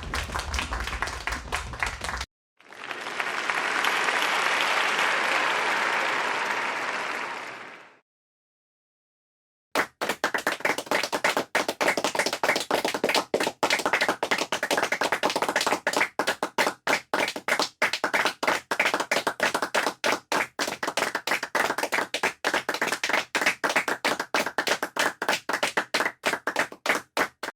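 Applause sound effects, one clip after another. First come a couple of seconds of distinct clapping, then a few seconds of dense crowd applause that swells in and dies away. After a short gap of silence comes a long run of sparser clapping with each clap heard separately.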